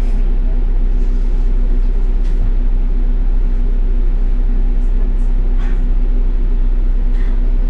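City bus engine idling while the bus stands still, heard from on board: a steady, loud low rumble with an even hum.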